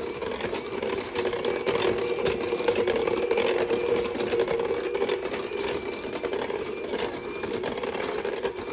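Electric mixer running steadily, beating room-temperature butter in a large bowl until smooth, with a constant motor hum and a dense rattle of the beaters.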